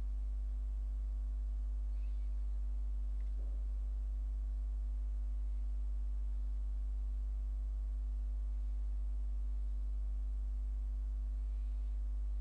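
Steady low electrical hum with a faint buzz of evenly spaced overtones, unchanging throughout: mains hum in the recording.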